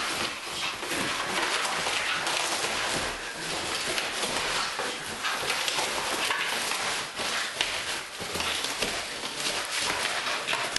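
A miniature bull terrier tearing and chewing at a cardboard box: a continuous run of scraping, ripping and knocking, made of many short scrapes and knocks.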